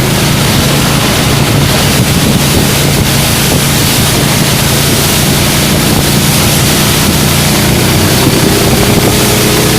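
Taiga snowmobile engine running steadily under way, with wind buffeting the microphone.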